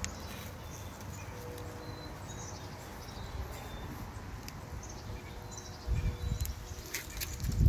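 Outdoor background noise with a few faint, short, high bird-like chirps, and low rumbling bumps about six seconds in and again near the end.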